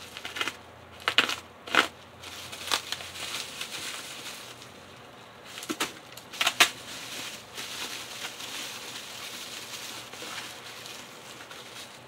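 Plastic bubble wrap crinkling as it is slit with a hobby blade and pulled off a model train car, with several sharp snaps, most in the first three seconds and a close pair about six and a half seconds in.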